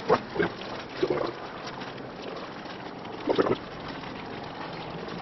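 A spoon stirring a pot of diced chicken as corn-soup-mix gravy thickens. There are a few short scrapes in the first second and another about three and a half seconds in, over a steady hiss.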